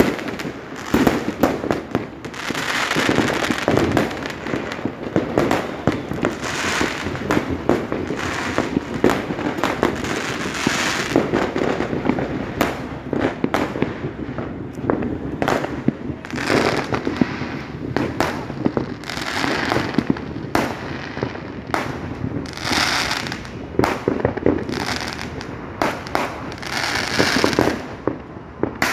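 Fireworks and firecrackers going off, a dense run of overlapping bangs and crackles with louder bursts every few seconds.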